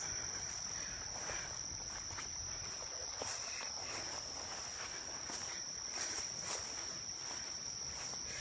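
A steady high-pitched insect drone, with faint scattered ticks and rustles.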